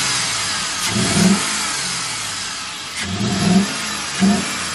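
Chevrolet Silverado Z71's V8 engine running with the hood up, blipped with the throttle three times, each rev rising and dropping back to idle. It still runs a little rough, which the owner blames on water left in the engine.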